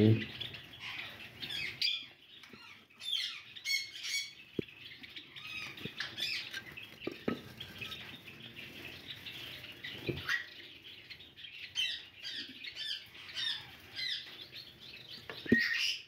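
Java sparrows chirping and calling, a steady run of short high chirps and call notes, with a few light knocks from a nest box being handled.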